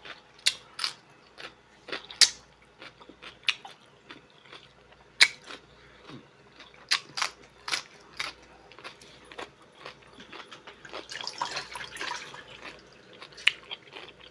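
Close-miked chewing of a seafood boil meal, with wet mouth clicks and lip smacks at an uneven pace, and a denser rustling stretch about eleven seconds in.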